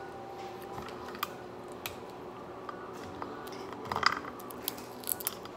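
Shellfish shells being cracked and pulled apart by hand: a scatter of sharp crackles and snaps, loudest in a cluster about four seconds in. A faint steady hum runs underneath.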